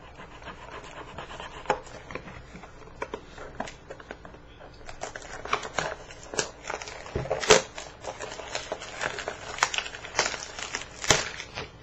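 Hands working at a cardboard blaster box of trading cards to open it: crinkling, scraping and tearing with scattered sharp snaps. The snaps come sparsely at first and much more often from about halfway, and the loudest come about two-thirds of the way through and again near the end, as the stiff box resists opening.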